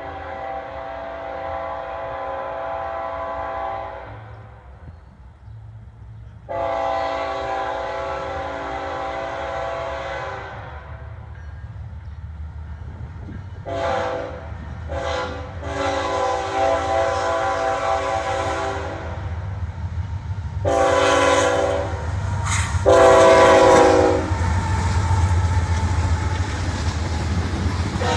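Freight locomotive's multi-chime air horn blowing for a grade crossing: two long blasts, two short ones, a long one, then two louder, shorter blasts as it nears. The train then rumbles past close by, its tank cars rolling on the rails.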